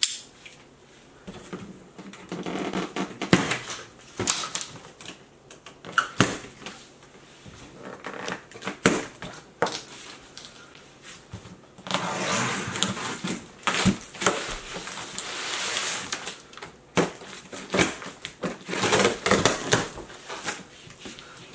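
A large cardboard shipping box being opened by hand: plastic strapping and packing tape cut with a box cutter, with sharp snaps and scrapes, then longer stretches of cardboard tearing and rustling in the second half.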